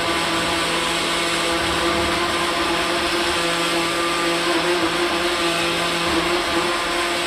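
Countertop blender running steadily, blending a pale drink in its jar, with a constant motor whine.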